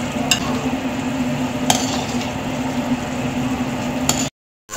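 Tamarind chutney cooking in a kadai, a steady sizzling and bubbling over a low hum, with a few light clinks of a spoon against the pan. It cuts off suddenly near the end.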